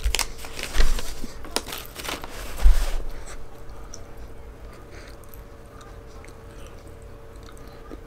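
Close-up chewing of a mouthful of hamburger, with small wet mouth clicks. In the first three seconds a paper burger wrapper rustles as it is handled and set down, with two low thumps.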